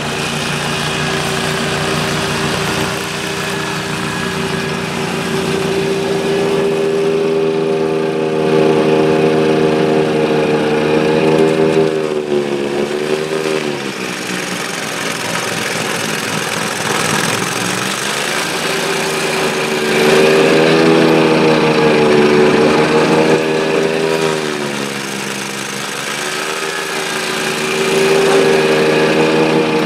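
Exmark zero-turn mower's engine running at high speed to drive a Toro 52-inch snowblower attachment clearing snow. Its pitch sags briefly and comes back up twice, and the sound swells and eases as the machine moves past.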